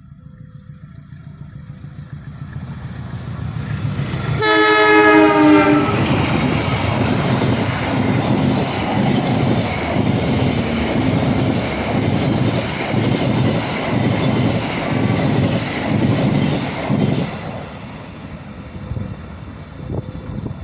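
CC 201 diesel-electric locomotive (a GE U18C) and its passenger train passing at speed. A rumble builds, the horn sounds one blast of about a second and a half with its pitch dropping slightly, and then the coaches' wheels clatter rhythmically over the rail joints before the sound fades near the end.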